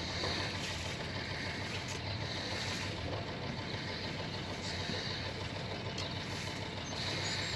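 A sailing yacht's inboard engine idling steadily, ready for leaving a berth.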